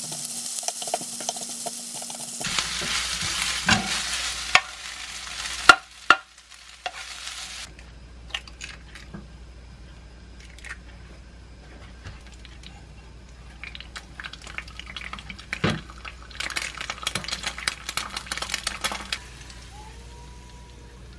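Fried rice with duck and mustard-leaf kimchi sizzling in a nonstick frying pan, stirred and scraped with a wooden spatula, with two sharp knocks on the pan about six seconds in. After that comes the quieter sizzle of an egg frying, with scattered clicks, and a short stretch of louder sizzling near the end.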